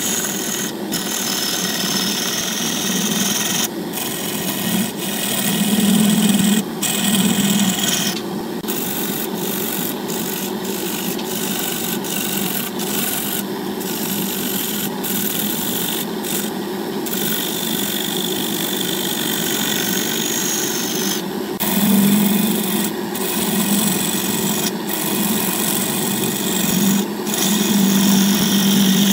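Wood lathe spinning a segmented vase of glued light and reddish wood while a turning tool cuts it, a steady scraping hiss of shavings coming off with many brief breaks. The cut gets louder around six seconds in and again near the end.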